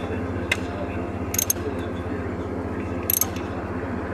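Ratchet wrench tightening the 7/16 nut on the hot (battery) terminal of an alternator: three short bursts of ratchet clicks, about half a second, a second and a half and three seconds in, over a steady low drone.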